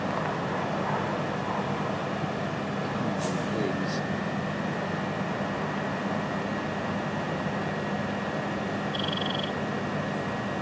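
Steady electrical hum of a Class 375 Electrostar electric multiple unit standing at the platform with its equipment running, holding two constant tones, one low and one high. A short high tone sounds about nine seconds in.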